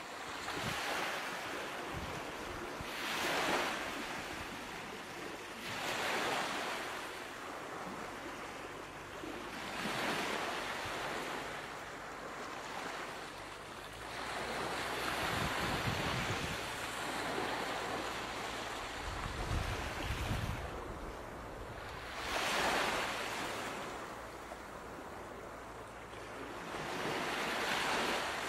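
Ocean surf: waves breaking and washing in, swelling and fading every few seconds.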